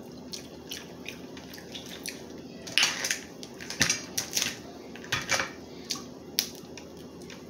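Crab leg shells being cracked and snapped open by hand and teeth: a run of irregular sharp cracks and clicks, loudest around the middle.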